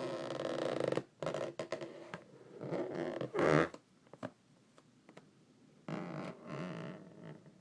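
Rubber balloon squeaking as hands rub it, in several bursts; the loudest is about three and a half seconds in, followed by a quiet stretch of about two seconds before the squeaking resumes.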